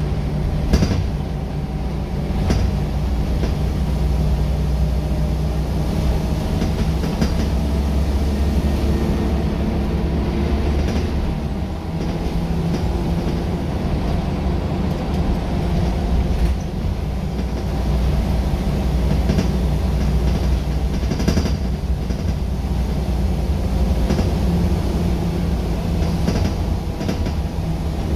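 Interior sound of a Scania L94UB single-deck bus on the move: its rear-mounted 9-litre Scania diesel engine runs steadily under road and tyre noise. Now and then the body gives a short knock or rattle.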